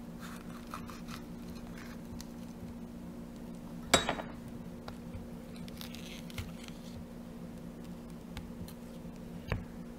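Kitchen knife cutting a red bell pepper on a bamboo cutting board: faint crisp cuts, a sharp knock about four seconds in and a smaller one near the end, over a steady low hum.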